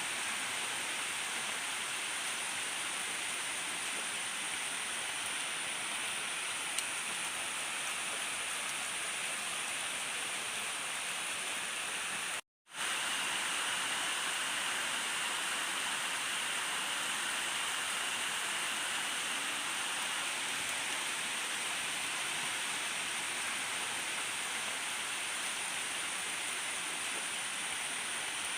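Steady rain falling without thunder, an even continuous hiss of rain. It cuts out to silence for an instant about twelve seconds in, then resumes unchanged.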